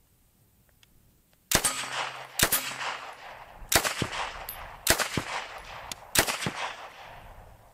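MK760 9mm open-bolt submachine gun fired on its semi-auto setting: after about a second and a half, five loud reports come roughly a second apart, several of them as quick doubles. The gun is not firing truly semi-automatically.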